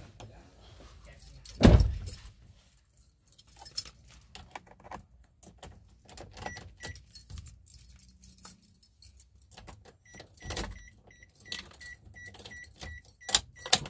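Car keys jangling and clicking at the ignition of a 2008 Daihatsu Terios, with a heavy thump about two seconds in. A quick high electronic beep repeats about three times a second, briefly in the middle and again near the end. The engine is not yet running.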